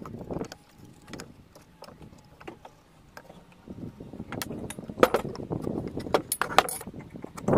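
Hands working a heavy timber sleeper block and a metal square on a wooden table: light clicks and scrapes of the square and pencil, then the block tipped onto its side and set down with a knock about five seconds in, among more rattling and scraping.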